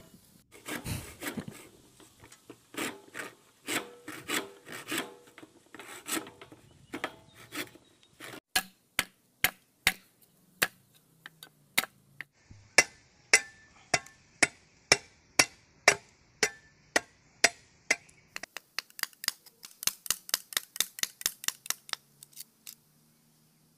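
Knife blade chopping and splitting bamboo: a long series of sharp strokes, one or two a second at first, quickening to a fast run of strokes near the end.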